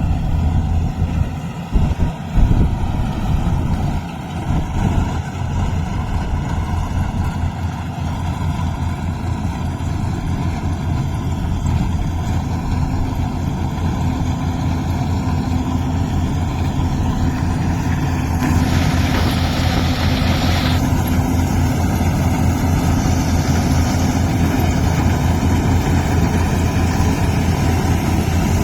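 Yanmar rice combine harvester's engine running steadily, a low pulsing drone with a higher hum joining about halfway through. There are a few knocks in the first five seconds and a brief hissing rush about two-thirds of the way in.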